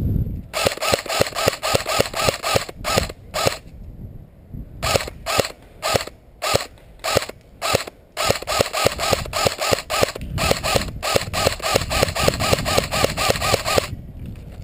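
Airsoft rifle firing a rapid string of single shots, several clicks a second, with the mechanical clack of the gun cycling; it stops briefly about three and a half seconds in, then fires again until near the end.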